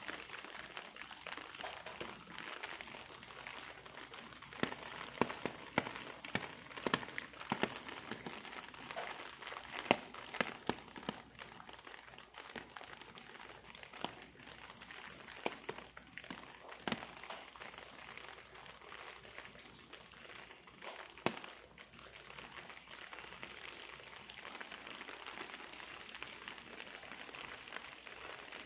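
Steady hiss of rain with irregular drops tapping sharply on hard surfaces, thickest in the first half.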